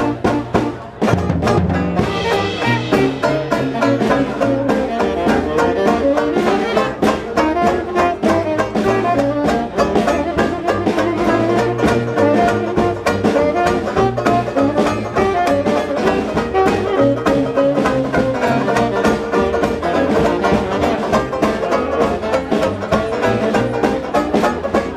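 Live jazz band playing: tenor saxophone and tuba over a strummed banjo and a drum kit keeping a steady beat.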